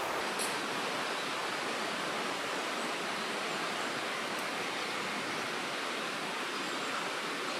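Steady rushing sound of flowing water, like a nearby stream, with no change in level.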